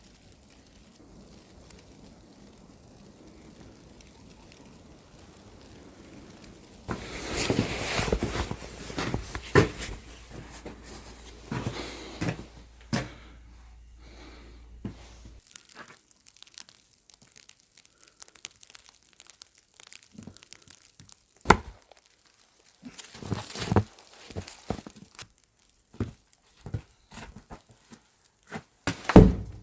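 A faint steady hiss, then, from about seven seconds in, rustling and crinkling handling noise broken by scattered sharp knocks and thumps.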